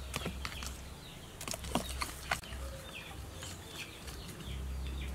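Metal utensil stirring thick batter in a plastic bowl, with a few sharp clicks of it against the bowl in the first half. Birds chirp in short falling calls in the second half.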